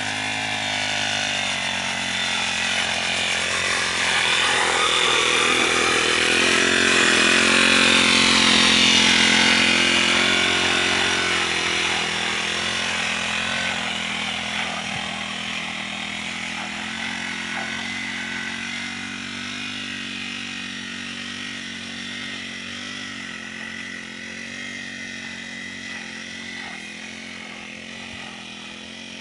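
Honda GX35 four-stroke brush cutter engine running steadily, growing louder to a peak about eight seconds in and then slowly fading.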